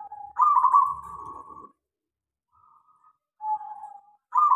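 Zebra dove (perkutut) cooing: a short lower coo followed by a louder, rippling trilled coo, then after a pause another short coo and the next trilled coo starting near the end.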